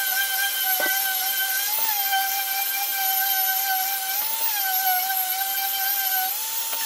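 Random orbital sander with dust extraction running over a solid oak slat: a steady whine over a high hiss, rising briefly in pitch about three times.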